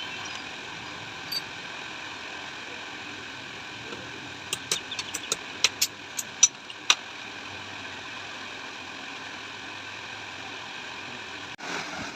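Workshop hand-tool work: a quick run of about nine sharp clicks and taps in the middle, over a steady background hiss.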